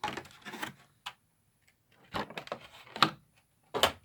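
A cardboard collector box and its packaging being handled: a few short rubbing and scraping sounds with a light knock near the end as items are taken out and moved.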